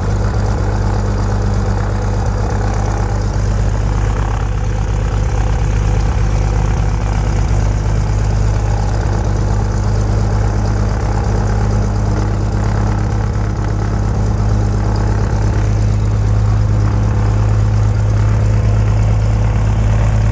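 Cessna's piston engine and propeller idling steadily, a low, even drone heard from inside the cabin.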